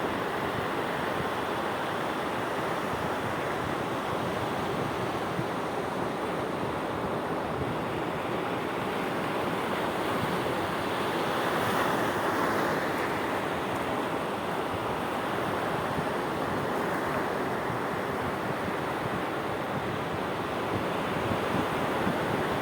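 Sea waves washing in steadily, a continuous surf rush that swells slightly about halfway through.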